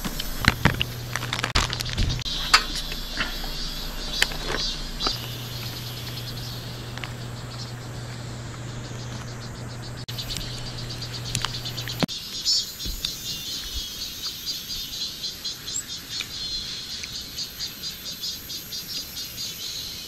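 Cicadas calling in a chorus, a high buzz with a regular pulsing that grows stronger in the second half. Light clicks and taps in the first few seconds and a low hum that stops about twelve seconds in.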